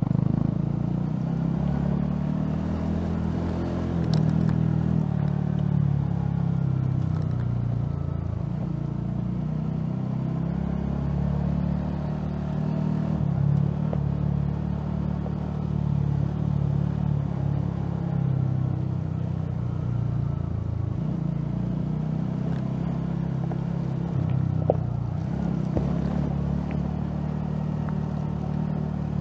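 Honda CB150R's single-cylinder engine running as the motorcycle is ridden slowly, its pitch stepping up and down with the throttle. A sharp knock comes near the end.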